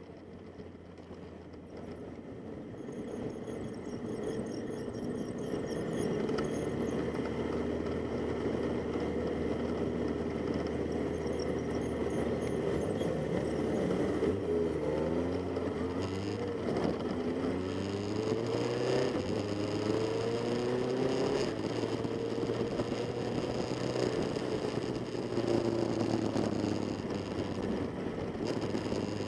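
Classic Kawasaki motorcycle engines running, fading in over the first few seconds; about halfway through the pitch rises and drops in several steps, as when accelerating through the gears, then settles into a steady run.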